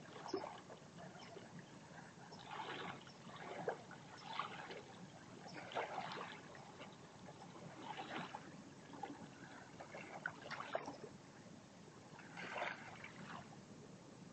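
Calm shallow seawater lapping and splashing softly at the water's edge, in uneven surges every second or two.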